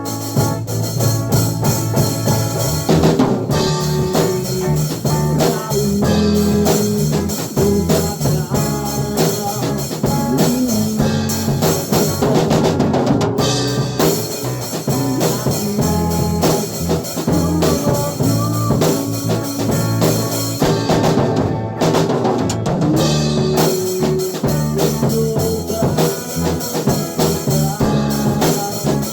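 Loud music with a drum-kit beat (kick drum, snare) and a bass line, played continuously during a sound check.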